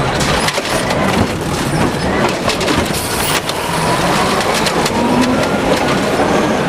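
Toy garbage truck being moved along, a steady rattling rumble full of small clicks.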